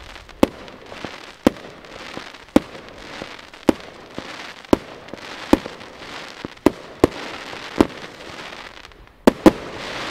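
Broekhoff Crown Executive compound firework battery firing: sharp shot reports about once a second, with a hissing crackle of gold glitter stars between them. Two reports come in quick succession near the end, followed by a swell of crackling.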